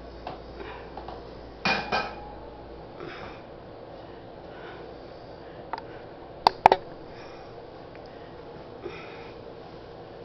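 Hard household objects being handled: scattered knocks and clinks, with a double knock about two seconds in and a pair of sharp clicks a little after six seconds, the loudest sounds.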